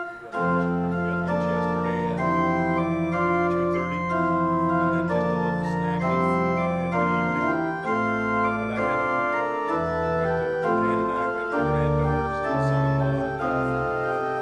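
Organ playing a hymn tune in full sustained chords over a bass line, starting abruptly about half a second in.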